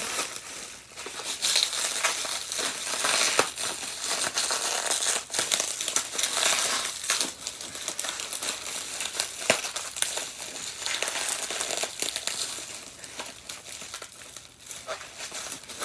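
Packing material being pulled off and unwrapped by hand: continuous crinkling and crumpling with many short sharp crackles and clicks throughout.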